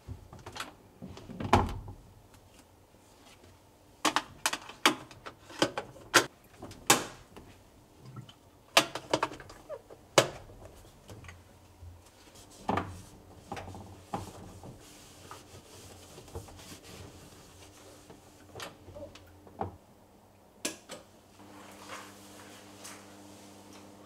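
Sharp clicks and knocks from hard bathroom fittings being handled and set down during cleaning. They come in quick clusters in the first half, then grow sparser over a faint steady hum.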